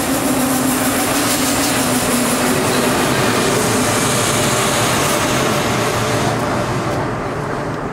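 Double-decker passenger train rolling into an underground platform and slowing, with a steady rumble and a low hum that sinks slightly in pitch. The hiss of the wheels fades near the end.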